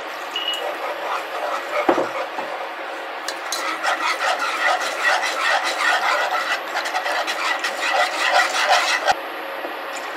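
Wire whisk scraping rapidly around a saucepan, beating a flour-and-oil roux as chicken stock is poured in. The rasping strokes are busiest from about three and a half seconds in and stop suddenly about nine seconds in.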